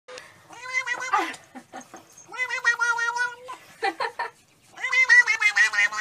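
Tabby cat yowling, three long drawn-out meows of about a second each, with short gaps between them.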